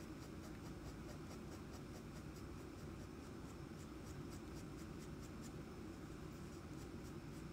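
Fine-tip drawing pen scratching on a paper tile in many short shading strokes, a few a second.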